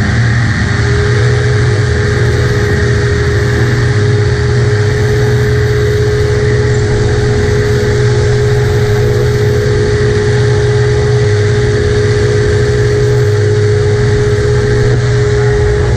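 Paramotor engine and propeller running loud and steady at high power, with a steady whine setting in about a second in.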